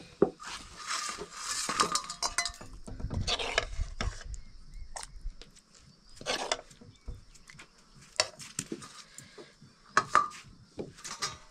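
Metal dishes and utensils clinking and scraping during a meal, in scattered irregular knocks and short rattles.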